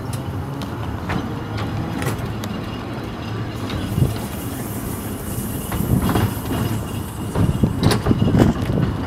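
Narrow-gauge electric tram running along the track: a steady rumble of wheels on rail with a motor hum and occasional sharp clicks, getting louder and rougher about six seconds in and again near the end.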